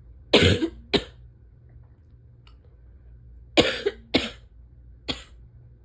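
Barking asthma cough in two bouts: a harsh cough with a shorter one right after it near the start, then three more coughs from about the middle on.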